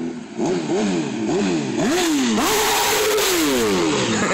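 Motorcycle engine accelerating hard, its revs climbing and dropping several times in quick succession, then one longer climb that holds briefly and falls away as the bike passes close by.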